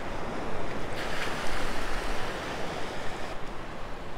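Small waves washing in shallow surf, with wind on the microphone; the wash swells a little about a second in.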